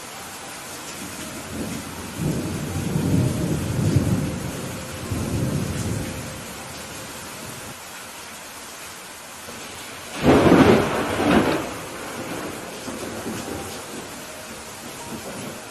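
Steady rain with thunder: a low rolling rumble about two seconds in, then a sharper, louder clap of thunder about ten seconds in that rumbles off within two seconds.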